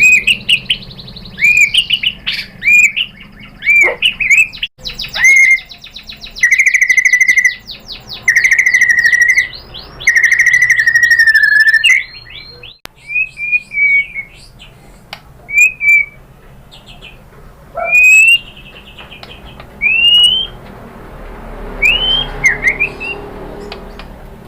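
White-rumped shama singing: loud whistled phrases that slur up and down, with rapid rattling trills through the middle few seconds, then shorter, spaced-out rising whistles toward the end.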